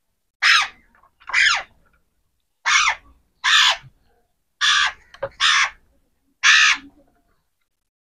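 Alexandrine parakeet giving seven loud, harsh calls, each a fraction of a second long, about one a second.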